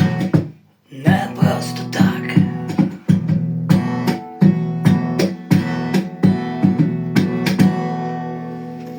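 Song accompaniment on strummed acoustic guitar with no vocals: a short break, then rhythmic strumming, ending on a final chord that rings out and fades.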